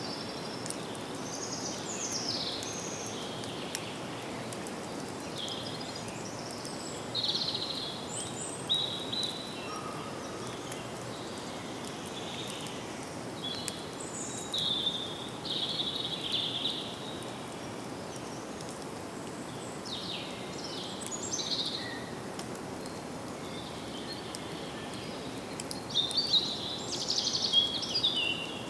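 Forest ambience: several songbirds singing short chirping phrases over a steady background hiss, with a dense, louder burst of song near the end.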